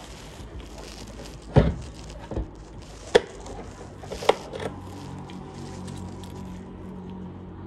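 Givi B45NM Atlas plastic motorcycle top case: the lid is swung shut with a heavy thump about one and a half seconds in, then two sharp clicks of the latch and key lock engaging.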